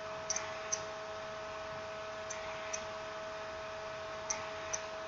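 Steady electrical hum with small, sharp clicks, mostly in pairs about half a second apart, recurring roughly every two seconds.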